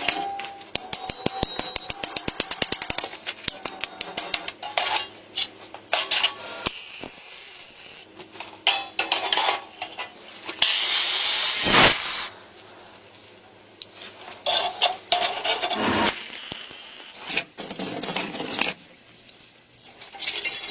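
Hand and power tools at work on metal: a fast run of clicks lasting a couple of seconds, then scraping and rubbing, with bursts of hissing noise.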